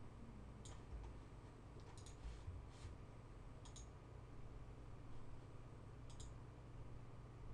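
Faint computer mouse clicks, a handful spread through, several coming as quick double clicks, over a steady low electrical hum.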